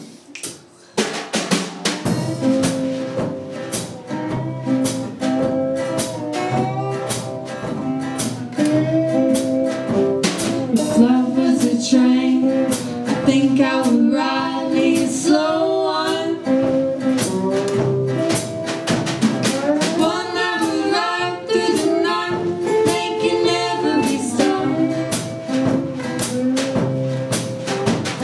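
A small band playing live, starting about a second in: a drum kit keeps a steady beat under two acoustic guitars and an acoustic bass guitar. Sung vocals come in about halfway through.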